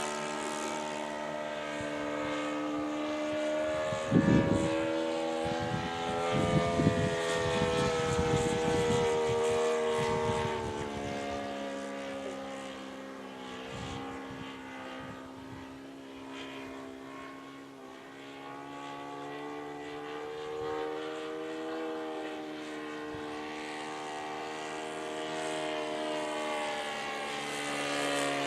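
Radio-controlled scale Hawker Hurricane flying past, its engine and propeller drone sliding down and up in pitch as it passes. The sound fades toward the middle and grows louder again near the end, with some low rumbles about four to nine seconds in.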